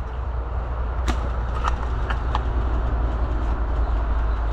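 Steady low rumble of wind buffeting the microphone, with a few faint sharp clicks in the first half.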